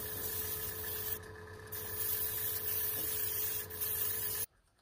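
Airbrush spraying paint: a steady hiss of air with a steady hum beneath it. The hiss dips briefly about a second in and cuts off suddenly near the end.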